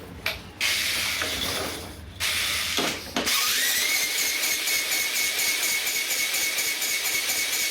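Electric drill spinning up with a rising whine that then holds steady as it cranks over a hard-starting small engine. Before the drill starts there is a hiss with a couple of knocks.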